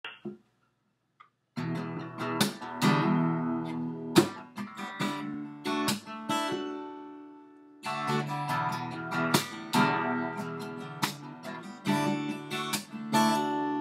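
Acoustic guitar playing an intro of strummed and picked chords, starting about a second and a half in. Around the middle a chord is left ringing and fades out, and then the playing picks up again.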